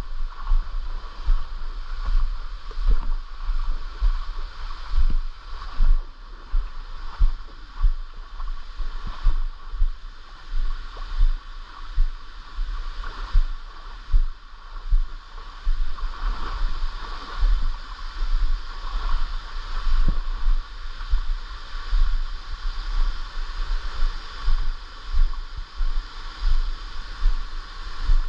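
A mountain stream flowing steadily, with regular low thumps about once a second over the rush of water.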